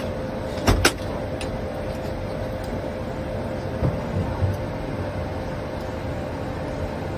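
Steady flight-deck hum and hiss of an Airbus A220 with its engines running, with a constant mid-pitched tone. Two sharp clicks come about a second in, and a few soft low thumps come around four seconds.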